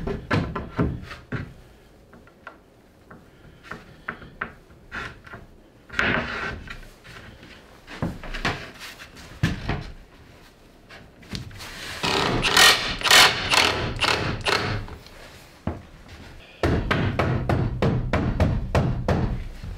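Wooden boards knocking and clattering as they are pushed and fitted into place, with a louder stretch of noise lasting a couple of seconds midway. Near the end a cordless drill runs steadily for about three seconds.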